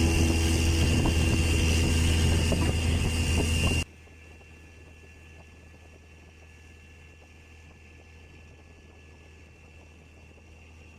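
Longtail boat engine running with a steady low drone, cutting off suddenly about four seconds in; a faint steady hum remains after.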